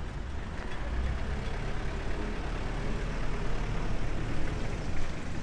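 Street traffic dominated by jeepney diesel engines running close by, a steady low rumble.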